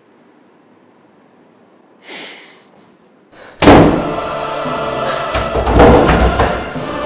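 Low hiss, then a short rush of noise about two seconds in. Loud dramatic music starts suddenly about three and a half seconds in, with heavy thuds of a fist banging on a wooden door.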